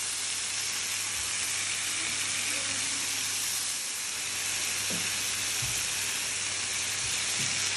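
Marinated chicken pieces sizzling steadily as they sear in a hot pan over high heat.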